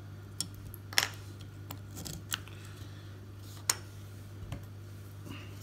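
A handful of sharp clicks and taps as small quadcopter electronics (a flight controller board, standoffs and wires) are handled and set down on a cutting mat, the loudest about a second in.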